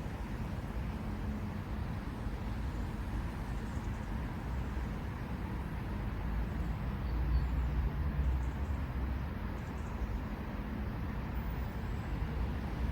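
Distant road traffic making a steady low rumble, which grows louder for a couple of seconds just past the middle.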